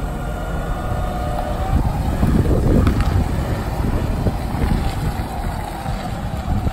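Cat P9000 forklift's propane-fuelled engine running as the truck drives and turns, with a steady whine that drifts slightly in pitch, under heavy wind rumble on the microphone.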